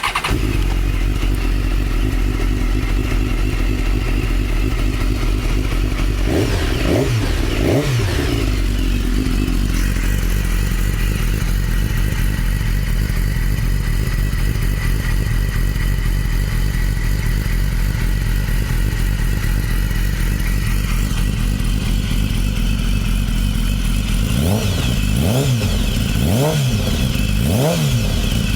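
A 2015 BMW S1000RR's inline-four engine idling steadily, blipped a couple of times about a quarter of the way in, then revved in a quick series of short throttle blips near the end, each rising and falling in pitch.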